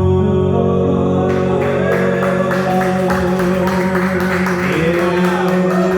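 Music with singing voices over long held notes, with a steady beat coming in about a second in.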